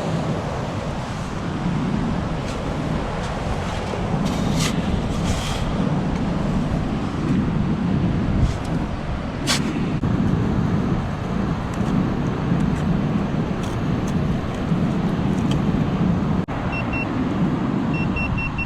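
A steady low outdoor rumble that swells and eases every couple of seconds, with a few sharp clicks. Near the end, a metal detector gives a run of short, high beeps, signalling a buried metal target.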